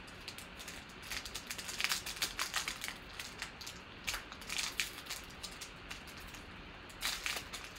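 Foil trading-card pack wrapper crinkling and crackling as it is handled and torn open, in several short bursts.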